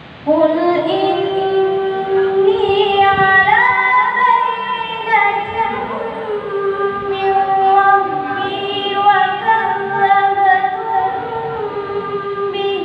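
A woman chanting the Qur'an in the melodic tilawah style, starting just after the beginning and drawing one long phrase out with ornamented turns that rise and fall. The voice comes through a microphone and loudspeakers.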